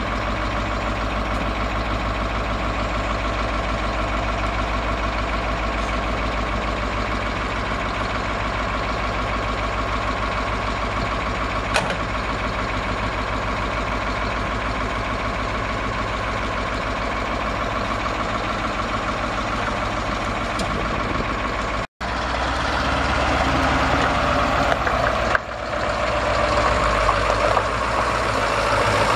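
Detroit Diesel 8.2-litre V8 diesel engine of a grain truck idling steadily. After a short break about three-quarters of the way through, the engine is louder as the truck drives.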